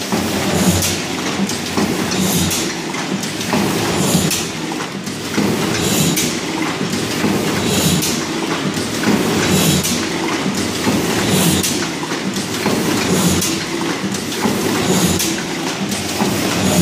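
Heidelberg Cylinder SBG die-cutting press running, its mechanism clattering in a steady rhythm that repeats about once a second with each machine cycle.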